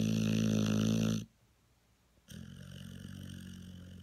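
A dog snoring. A loud, droning snore stops about a second in, then after a pause of about a second a softer snore runs for nearly two seconds.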